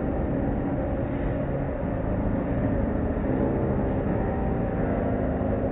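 Automatic car wash machinery heard from inside the car: a steady rumble with several steady humming tones, as the spinning cloth brushes and equipment work over the car.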